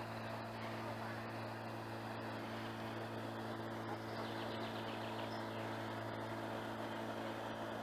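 Motorboat engine running with a steady low hum, neither rising nor falling.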